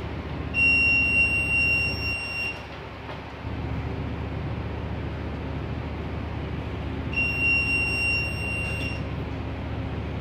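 An electronic alarm buzzer sounds twice, each a steady high tone about two seconds long, some six seconds apart, over the steady low drone of the towing vessel's engines.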